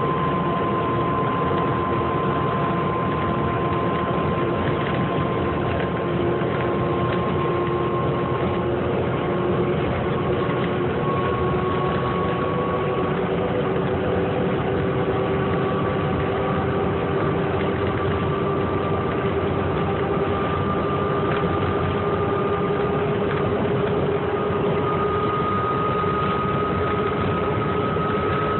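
Inside a 2008 New Flyer C40LFR transit bus at freeway speed: its Cummins Westport ISL-G natural-gas engine and drivetrain run steadily under road noise. A whine rises slowly in pitch as the bus gradually gains speed.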